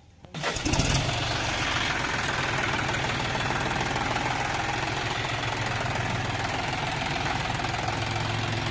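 A John Deere tractor's diesel engine starts about half a second in and settles into a steady idle.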